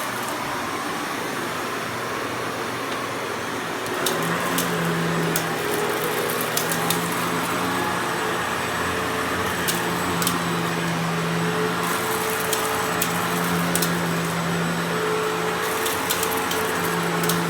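Riccar Prima Tandem Air canister vacuum cleaner running steadily while vacuuming. About four seconds in it gets louder and a steady hum joins, with scattered ticks and crackles.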